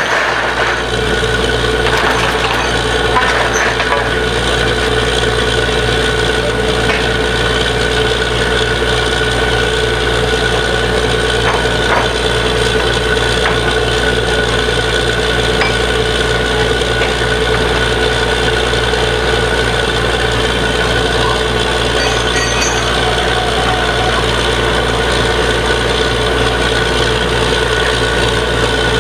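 Truck-mounted borewell drilling rig running steadily, its engine giving a constant hum with a steady whine over it, and a few faint knocks in the first few seconds.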